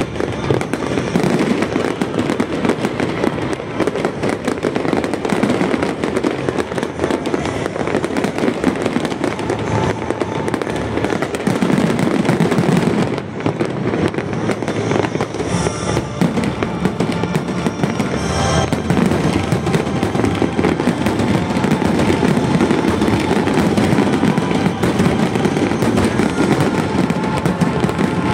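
Aerial firework shells bursting in a loud, rapid, unbroken barrage of bangs and crackle.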